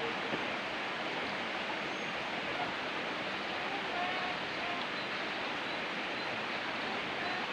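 Steady rushing of running water from a mountain stream.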